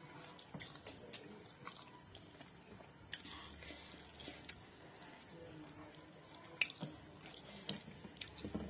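A person eating steamed momo dumplings by hand: faint chewing and wet mouth clicks, with a few sharper clicks, the loudest about three seconds in and again about six and a half seconds in.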